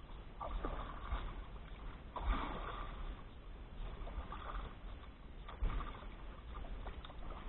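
Water lapping and sloshing against the hull of a small outrigger boat, faint and steady, with a few soft knocks.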